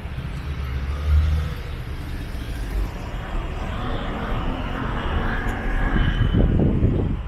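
City street traffic: car engines running close by with a low rumble, and bursts of wind noise on the microphone near the end.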